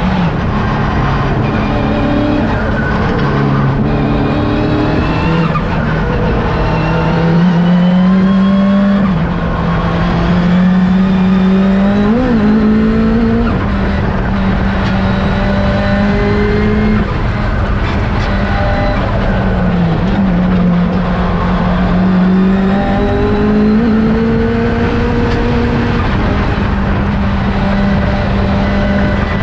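Honda K20 four-cylinder engine of an NSX time-attack race car at speed on track, climbing steadily in pitch through each gear and dropping at every shift and braking zone.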